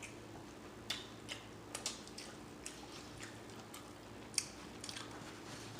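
Faint chewing of a taco, with irregular wet mouth clicks and smacks, about a dozen over a few seconds.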